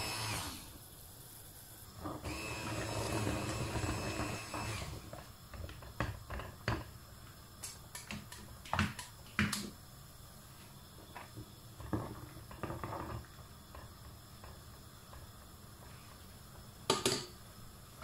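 Immersion (stick) blender running in a pot of pumpkin soup with a whirring whine: it stops just after the start, then runs again in a burst of about three seconds. Afterwards, scattered clicks and light knocks of utensils against the pot, the loudest a sharp double knock near the end.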